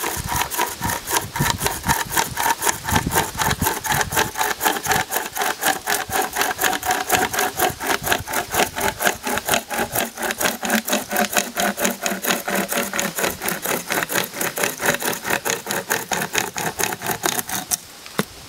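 Hand-pulled pocket chain saw sawing wood, with rapid, even back-and-forth rasping strokes that stop shortly before the end.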